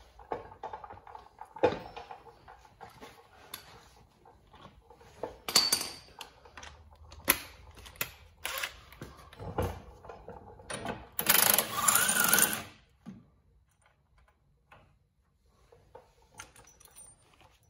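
Metal tools clinking and knocking, then a cordless power tool runs for about a second and a half, backing out a brake caliper bracket bolt.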